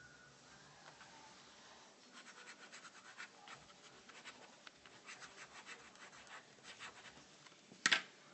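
Ink pen nib scratching across paper in quick, short strokes while a signature is scribbled. A single sharp click near the end.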